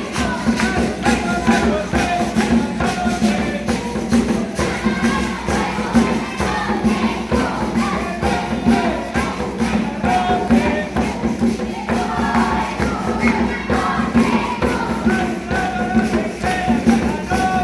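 Music with singing voices over a steady percussive beat.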